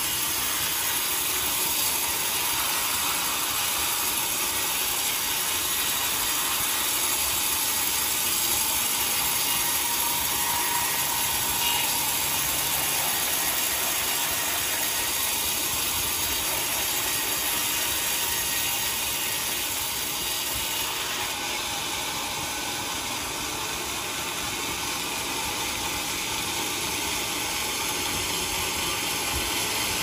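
Large sawmill band saw cutting lengthwise through a teak log: a steady, even mechanical buzz with a rattling edge.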